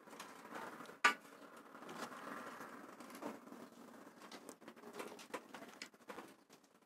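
Faint handling noises as a thin plastic patch cut from a lid is pressed into the broken channel of a curtain rail to test the fit: light scraping and small ticks, with one sharp click about a second in.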